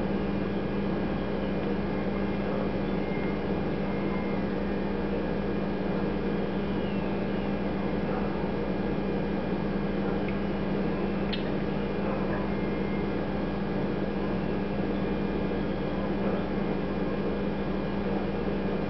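Steady background hum, like a fan or mains-powered appliance running in a small room, with one faint click about eleven seconds in.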